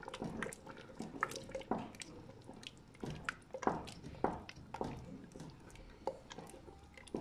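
Wooden spoon stirring thick taro stew with tahini and lemon sauce in a metal pot, giving irregular wet squelches and splashes.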